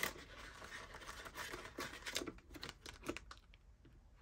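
Paper banknotes rustling and crinkling as they are handled and tucked into a plastic envelope pocket in a ring binder, with a few small clicks. The rustling dies down after about three seconds as the binder page is turned.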